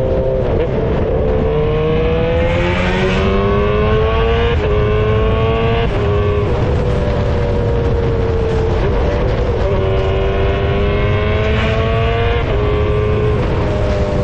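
Yamaha R15 V3's 155 cc single-cylinder engine pulling under way. Its pitch climbs and drops sharply several times as the rider shifts up through the gears.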